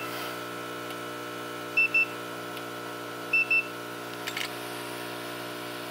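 Handheld infrared thermometer beeping, two short high beeps, then two more about a second and a half later, as temperature readings are taken. Underneath, the hot air rework station runs with a steady hum.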